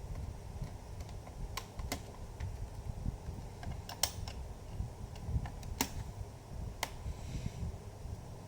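Irregular sharp clicks and taps of a Phillips screwdriver working screws out of an HP Pavilion G4 laptop's plastic case, over a low handling rumble.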